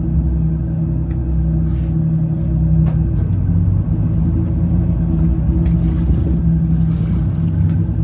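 Engines of a 1988 Ocean Yachts 48 SS sportfishing yacht running steadily under way, a loud, even low rumble with a constant drone.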